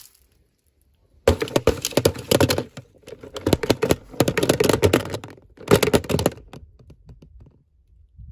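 Toy packaging being opened by hand: a rapid run of crackles and clicks that starts about a second in and stops after six seconds, with two short pauses.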